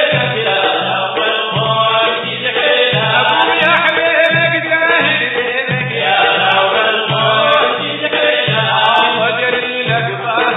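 Sudanese Sufi madeeh (praise song): a group of men chanting together in chorus over a steady, repeating low drumbeat.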